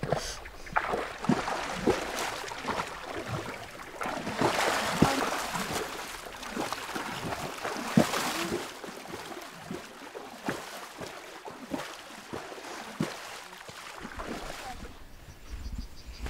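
Water splashing and lapping in river shallows, with scattered sharp knocks and a louder rush of noise in the middle.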